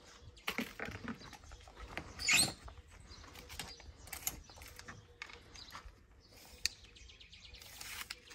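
Scattered light clicks and rustles of wooden arrows and a steel tape measure being handled, with one louder rustle about two seconds in.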